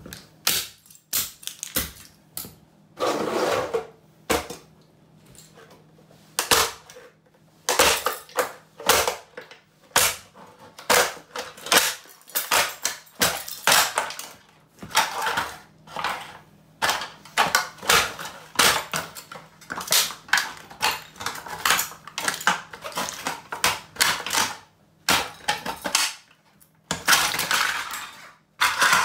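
Steel-toe wellington boots stamping again and again on an orange plastic toy on a tile floor. The plastic cracks and crunches as it breaks, and hard fragments clatter over the tiles, in an irregular run of sharp knocks.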